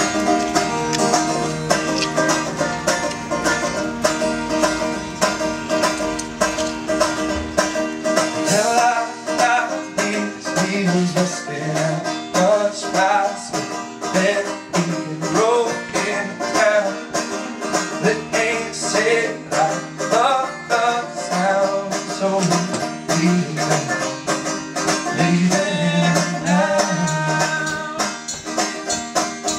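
Acoustic folk-punk song played live, led by a steadily picked banjo with strummed guitar. A wavering melody line comes in over the picking about eight seconds in.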